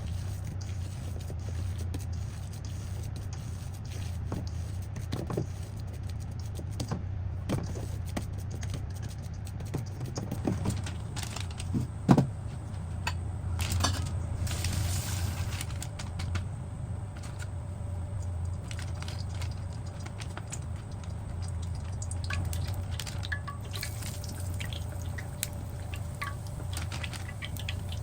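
Kitchen handling sounds: scattered light taps and clicks, with one sharper knock about twelve seconds in, over a steady low hum.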